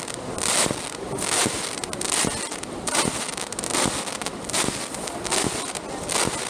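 Aerial firework shells bursting in a fireworks display, a sharp bang about every second over a constant crackling hiss.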